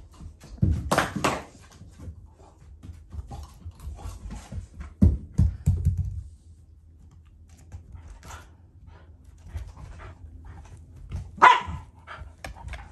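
A black Shiba Inu and a black Labrador play-fighting, with growls and barks in bursts: a loud outburst about a second in, a low scuffle around five seconds, and a sharp bark near the end. The growling is play, not anger.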